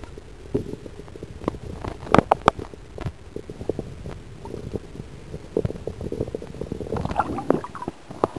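Muffled water movement heard through a microphone held underwater in a river: a low rumbling with many sharp knocks and clicks as a hooked smallmouth bass struggles, the knocks loudest about two seconds in. Near the end a brief splashing comes as the microphone leaves the water, and the muffled sound stops.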